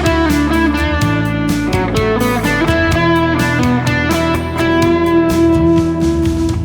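Electric guitar lead, a Stratocaster copy on stock pickups played through a Cuvave Cube Baby amp and cab simulator, bending up into notes and holding a long sustained note near the end, over a backing track with drums and bass.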